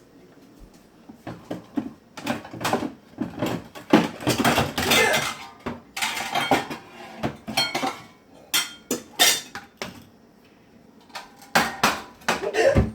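Dishes, pots and cutlery clattering, with many sharp clanks and knocks in quick succession and a short lull about two-thirds of the way through.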